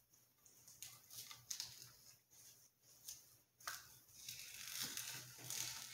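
Faint, irregular rustling and scraping of gloved hands working at the epoxy fillets along a model rocket's fin root, with a longer rustle near the end.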